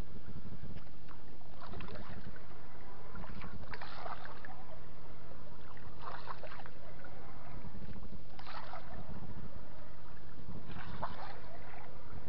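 Water splashing against the side of a small fishing boat in bursts every two seconds or so, over a steady low hum.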